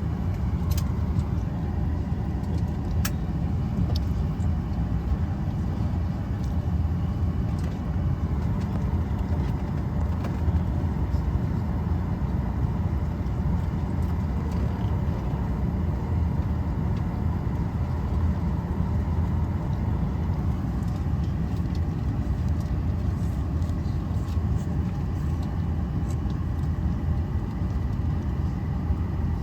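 Steady low rumble of airliner cabin background noise, with a couple of faint clicks in the first few seconds.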